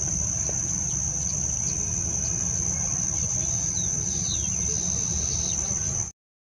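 A steady, high-pitched insect drone, like crickets, over a low rumble, with a few faint bird chirps mixed in; it all cuts off suddenly about six seconds in.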